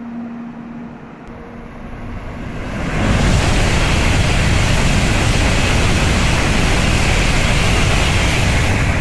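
N700-series Shinkansen passing through the station at high speed without stopping. Its rushing roar swells in about two seconds in and holds loud and steady as the train streams past.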